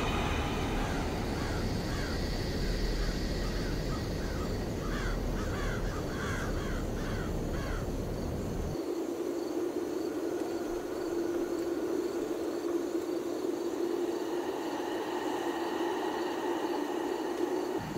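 A car driving at night with a steady road and engine rumble, over which a string of short repeated animal calls sounds for several seconds. About nine seconds in, the rumble cuts off abruptly and a steady hum takes over.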